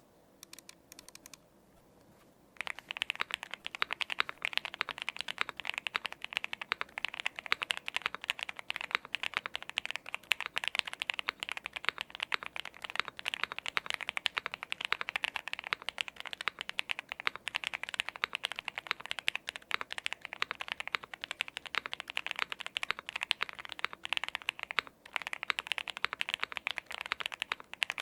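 Steady fast typing on a custom mechanical keyboard (Mr Suit case, POM plate, stock TTC Wild switches, Domikey Astronauts keycaps, fully foamed), giving a dense run of keystroke clicks. A few faint taps come first, the fast typing begins about two and a half seconds in, and it breaks off briefly near the end.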